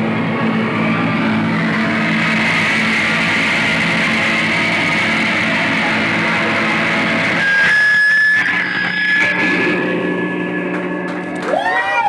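A live rock band playing a loud, dense wash of distorted electric guitar through effects pedals, with drums and cymbals. About seven and a half seconds in the band drops away, leaving one steady high tone ringing over a low drone, and right at the end the crowd starts shouting.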